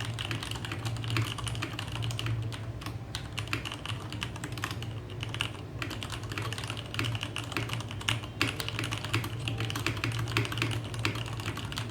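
Leopold FC660M mechanical keyboard with Cherry MX Red linear switches being typed on rapidly and continuously, a dense run of keystrokes as the keys bottom out. A steady low hum runs underneath.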